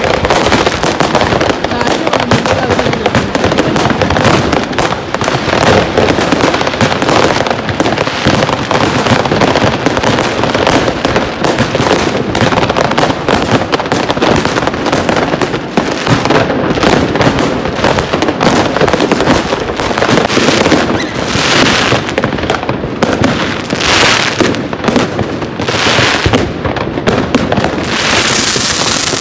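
New Year's fireworks and firecrackers going off in a dense, unbroken barrage of bangs and crackles. Hissing bursts come more and more often over the last several seconds.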